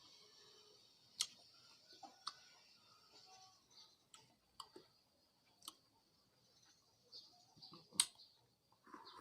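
Quiet eating of a cup of ice cream: sparse light clicks and taps, the sharpest about a second in and near the end, over a faint steady high hiss.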